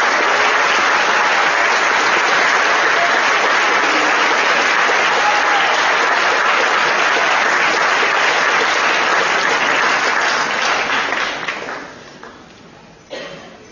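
Audience applauding, steady and full, then dying away about twelve seconds in.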